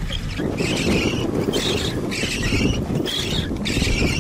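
Strong storm wind buffeting the microphone, a heavy low rush that thickens about half a second in, with a higher hissing gust sound that swells and fades about twice a second.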